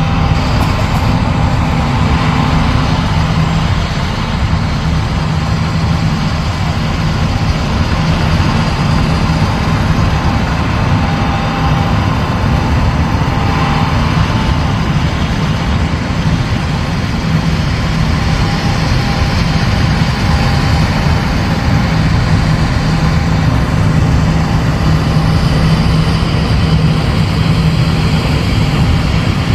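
Heavy John Deere farm machinery running steadily: a continuous low diesel engine hum with a thin steady whine above it.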